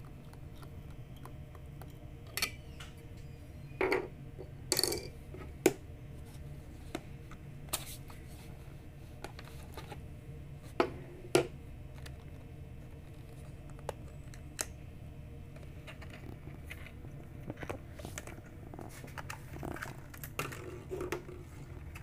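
Hands prying the plastic terminal cover and cap off a hermetic rotary compressor and setting them down: scattered clicks, scrapes and short knocks of plastic on metal, loudest around five seconds in and again around eleven seconds, over a steady low hum.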